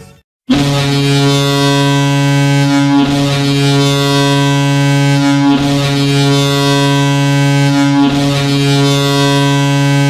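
Pelicans' ice hockey goal horn: one long, loud, deep ship-style horn blast at a steady pitch, starting about half a second in and held for about ten seconds.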